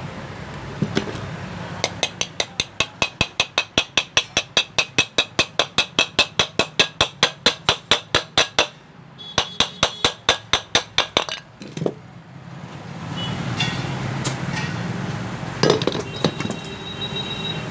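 Rapid light hammer taps driving a new ball bearing into a ceiling fan's motor body, about six a second for several seconds, then a shorter run of taps with a metallic ring and a single knock. A steady background noise follows.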